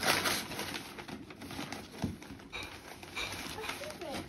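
Wrapping paper being torn and rustled as a present is unwrapped, with a loud rip at the start and softer crinkling after.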